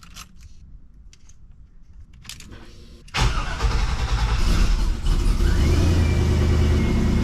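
An LS-swapped squarebody Chevrolet truck's V8 starts suddenly about three seconds in and keeps running loud and steady. The start is a test of whether the newly wired check-engine light goes out.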